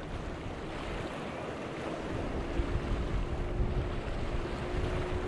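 Wind buffeting the microphone over the wash of choppy waves, with a steady boat engine hum that comes in about two seconds in and rises slightly in pitch.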